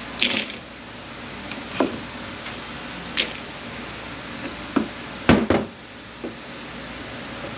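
Scattered metal clinks and knocks of hand tools and parts being handled during the teardown of an A650E automatic transmission: about six sharp taps spread out, the loudest a quick pair about five and a half seconds in.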